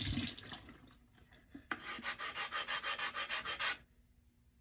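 A water sharpening stone's chipped edge is rubbed against a flattening stone in quick back-and-forth strokes, about five a second for some two seconds, grinding the chip off to bevel the edge. Before the strokes, a rush of running water fades out in the first second.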